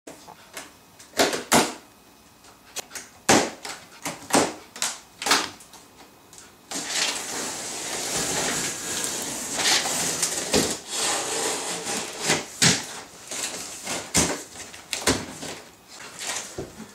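Packaging handled during an unboxing: a run of separate sharp knocks and clicks, then from about seven seconds in a continuous rustling hiss with more knocks over it.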